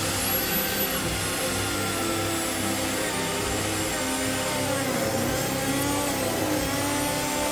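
Electric router running in a sled across an oak slab, flattening it. The loud, steady whine and cutting noise start suddenly, and the pitch sags and recovers around the middle as the bit takes the load.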